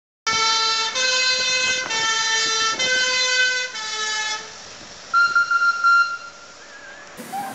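Vintage fire engine's two-tone warning horn sounding, stepping back and forth between a lower and a higher note about once a second for five notes, then stopping; a brief single higher tone follows about five seconds in.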